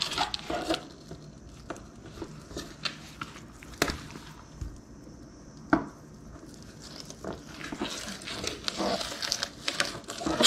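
Fillet knife slicing and scraping through a speckled trout on a plastic cutting board, with soft rustling of the fish being handled and a couple of sharp taps of the blade against the board.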